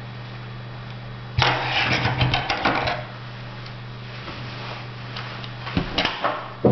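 Hands working plastic drinking straws and fishing line while tightening and trimming a knot: a loud burst of rustling and crackling about a second and a half in, then scattered clicks and a sharp knock near the end as the scissors are set down on the table.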